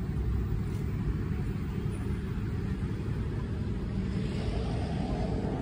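Steady rumble of city street traffic, with a vehicle passing louder from about four seconds in.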